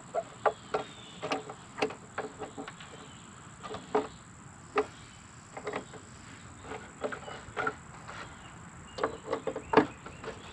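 Irregular short clicks and knocks as a fastener is worked into its hole on a Cat 259D skid steer's engine cover, with a louder knock near the end.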